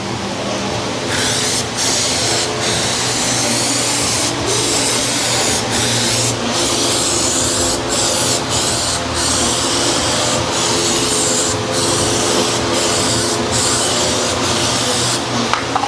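Aerosol spray can of a gloss quick-check coating hissing onto a freshly sanded car quarter panel, to preview how the repair will look once painted. The hiss starts about a second in and runs for about fourteen seconds, broken by many brief pauses, over a steady low hum.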